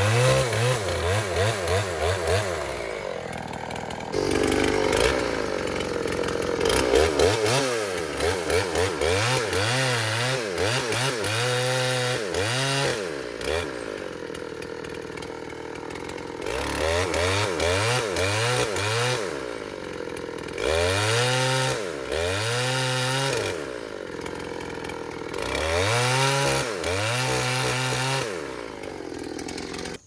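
Old Dolmar two-stroke chainsaw cutting into the trunk of a standing dead elm, the engine revved up to full throttle and let back down again and again as the bar works into the wood.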